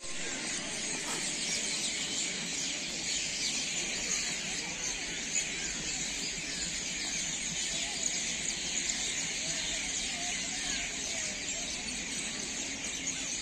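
Railway platform ambience: a steady high-pitched hiss with faint chatter of waiting passengers.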